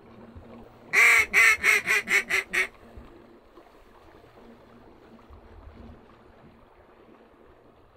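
Hand-blown mallard duck call: a run of about seven quacks, each shorter and quieter than the last, calling to ducks flying overhead.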